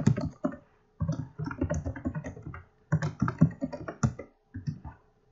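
Typing on a computer keyboard: quick, irregular runs of keystrokes with short pauses between them, as a short name is typed out.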